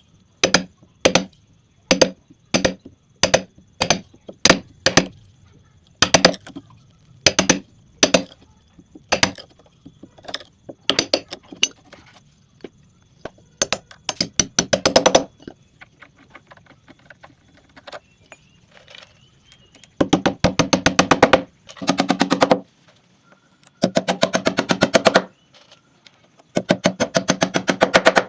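Power impact driver hammering bolts into a wooden bed frame in repeated rattling bursts: short bursts of a few strikes at first, then longer runs of rapid blows in the last third.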